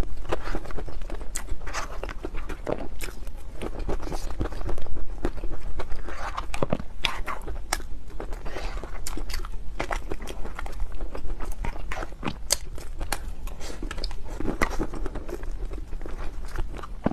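Close-miked eating sounds of a person eating cake: irregular biting, chewing and wet mouth clicks and smacks.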